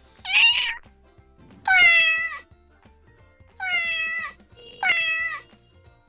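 A domestic cat meowing four times, each meow about half a second long and dipping in pitch at its end. The first meow is shorter and higher than the rest.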